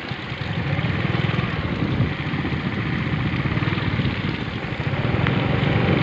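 Motorcycle engine running while the bike is ridden over a mud-covered road, its fast low pulse steady under a rush of road and wind noise. The engine gets a little louder about half a second in.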